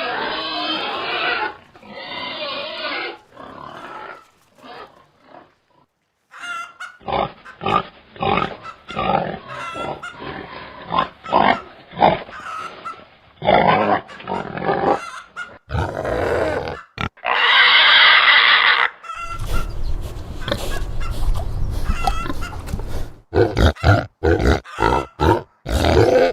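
Pigs grunting in many short, irregular calls, with a brief lull early on. About eighteen seconds in comes one louder, higher-pitched call lasting about a second and a half.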